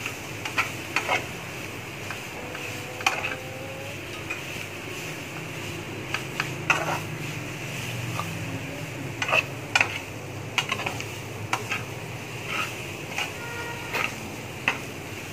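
Perforated metal spatula scraping and knocking against a metal frying pan while stirring mashed potato into a chicken samosa filling: irregular clicks and scrapes over a steady low hum and hiss.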